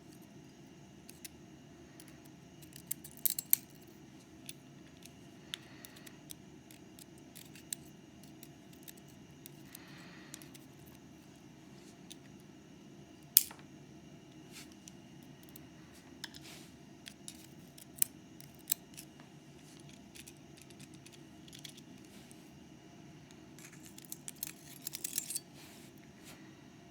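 Scattered light metallic clicks and taps of small lock parts being handled while a Mauer MLS euro cylinder is taken apart for its pins, with one sharp click about 13 seconds in and a quick cluster of clicks near the end.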